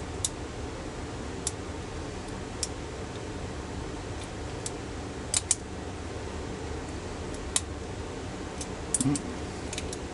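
Sharp metallic clicks of a hook pick and tension wrench working the pins in the cylinder of a Master Lock tailgate lock, about ten at irregular intervals, over a steady background hiss.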